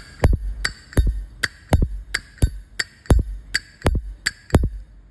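Zippo lighter's hinged metal lid being snapped open and shut over and over, a quick run of sharp, ringing metallic clicks at about three a second.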